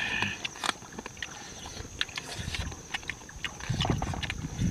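Close-up eating sounds: wet chewing and lip smacks with many short clicks, over a steady, pulsing high drone of night insects.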